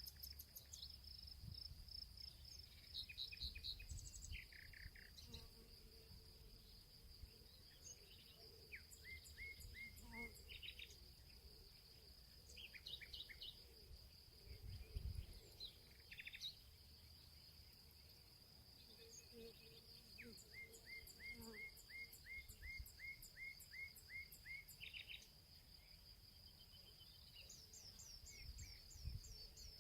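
Faint birdsong over a steady, high insect trill. Short runs of repeated chirps come and go throughout, from more than one bird.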